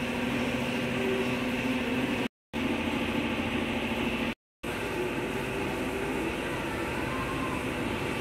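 Steady machine hum, with a constant low tone under an even noise, cut to dead silence twice for a split second.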